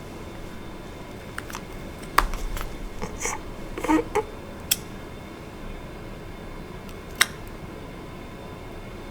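Slime being handled: a handful of short sharp clicks and pops, with a brief crackly cluster a few seconds in, over a steady background hiss.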